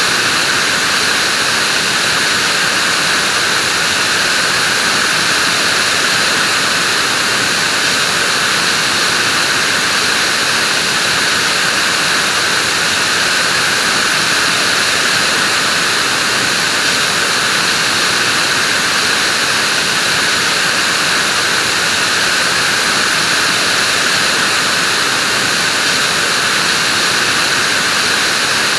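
Vacuum cleaner running steadily: an even, unbroken whooshing hiss with no change in pitch or level.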